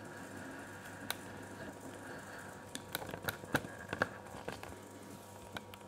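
Faint sharp clicks and light taps of the small metal and plastic parts of a Campagnolo shifter mechanism being handled on a wooden table, one about a second in and a quick cluster from about three to four and a half seconds in, over a steady low room hum.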